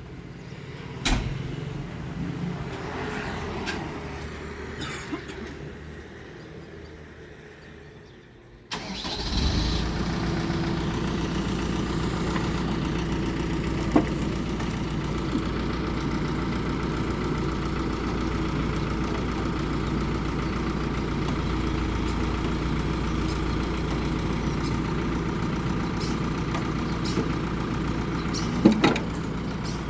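Backhoe loader's diesel engine comes in suddenly about nine seconds in and then runs steadily at idle. A few faint knocks come before it, and sharper knocks come near the end.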